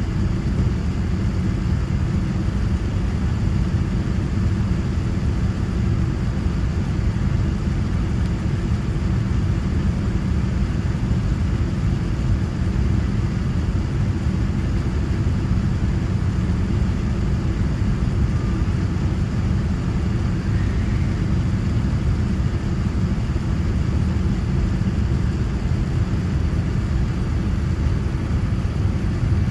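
Steady low rumble of Boeing 787-9 airliner cabin noise: engine and airflow noise heard from inside the cabin, even and unchanging throughout.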